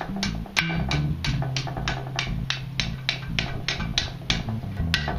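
Hammer blows on a hot iron bar held over the anvil horn, about three a second, each with a short metallic ring, as the bar is bent over. Background music with guitar and bass plays underneath.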